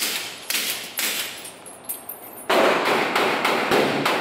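Handgun shots on an indoor range, a quick string of sharp reports about half a second apart, each followed by an echo off the range walls.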